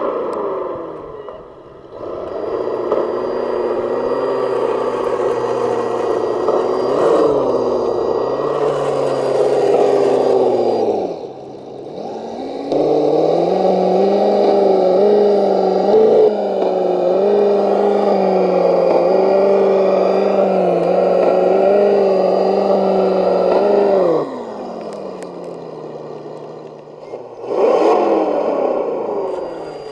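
Large radio-controlled monster truck running, a steady pitched engine-like drone that rises and falls with the throttle. It drops out briefly, comes back for a long run, then winds down in a falling pitch and starts again briefly near the end.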